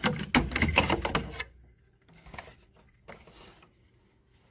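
Rapid clicking and rattling of small hard printer parts being handled for about a second and a half, then a couple of faint knocks.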